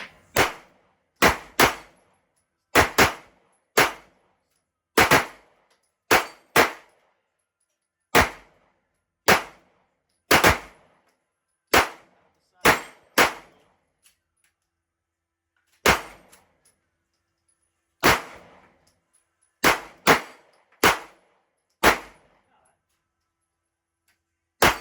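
Pistol shots fired at an irregular pace, about two dozen in all, some in quick pairs, each shot sharp and loud with a short ringing tail.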